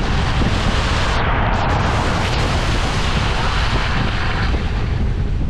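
Off-road vehicle on the move: a loud, steady rush of tyre and wind noise, with wind buffeting the microphone.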